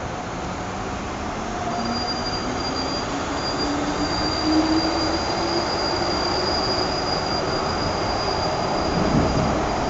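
MTR first-generation M-Train running and picking up speed. The traction motors give a whine that rises in pitch over the first few seconds, and a steady high wheel squeal sets in about two seconds in and holds. A low rumble comes near the end.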